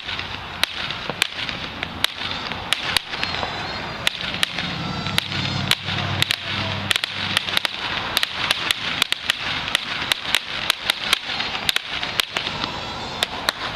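Firecrackers going off in rapid, irregular succession: many sharp pops, several a second, over a steady crackling hiss.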